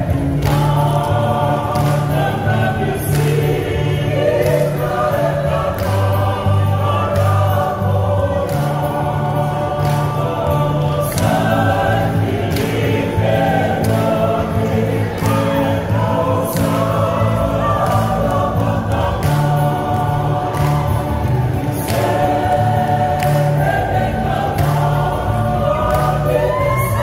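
Women's choir singing a song in several-part harmony over a steady low bass line that moves in held steps.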